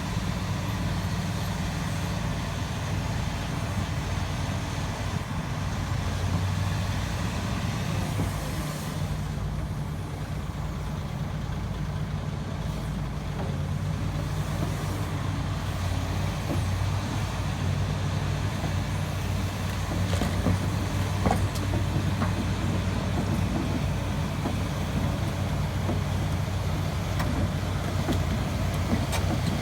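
Heavy diesel engines of a crawler excavator and a dump truck running steadily with a deep, even hum, getting a little louder about two thirds of the way through.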